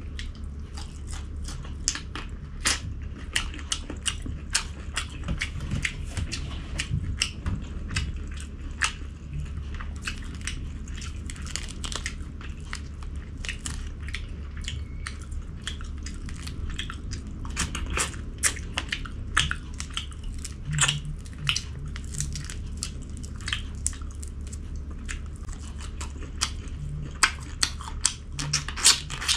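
A person chewing and crunching food at close range, with many sharp crunches and wet mouth clicks, over a steady low hum.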